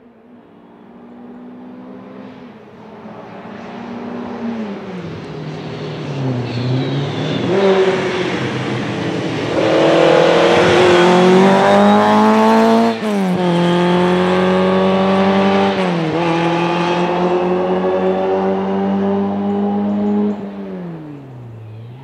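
Opel Kadett GT/E rally car's four-cylinder engine revving hard as it approaches, passes close and pulls away, its pitch climbing and dropping back at each gear change. It is loudest about halfway through and fades near the end.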